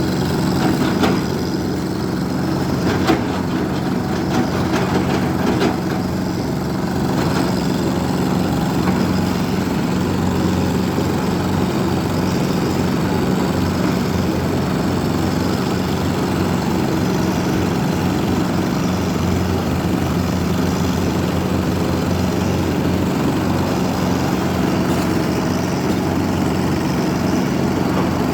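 JCB 3DX backhoe loader's diesel engine running steadily, with a few sharp knocks in the first several seconds.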